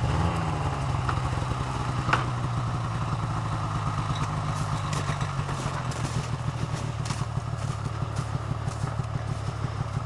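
Snowmobile engine running steadily at low revs with an even pulse, its pitch dropping slightly at the start. A short knock comes about two seconds in.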